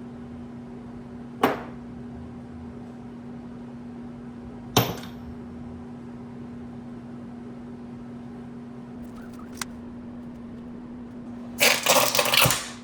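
A steady electrical hum, broken by two sharp clicks and, near the end, a loud burst of noisy clatter lasting about a second.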